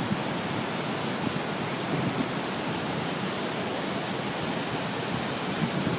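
Shōmyō Falls, a large waterfall, pouring with a steady, even rush of falling water.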